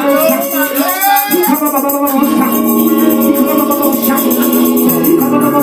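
Gospel singing into a microphone over held electronic organ chords; the voice slides and wavers above the sustained chords.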